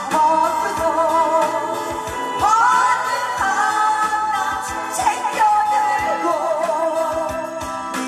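A woman singing a song live with a strong vibrato over a backing track with a steady beat. Her voice is worn hoarse from a long run of performances.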